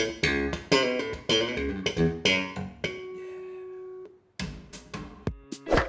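Jazz-fusion music played through a pair of Gauder Akustik Capello 40 hi-fi bookshelf speakers: fast plucked bass guitar and electric guitar notes, one note held for about a second near the middle, a brief break, then sharp hits with ringing, bell-like tones near the end.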